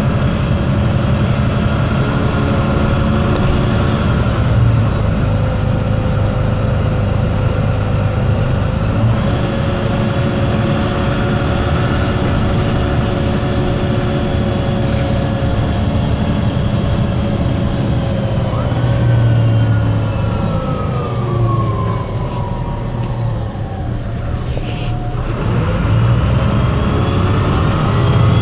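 MAN NL 263 city bus's small MAN D08 diesel engine and Voith 851 three-speed automatic gearbox running under way, a steady diesel drone with a gearbox whine above it. About two-thirds of the way in the whine falls steadily in pitch over a few seconds as the bus slows, and near the end the pitch climbs again as it pulls away.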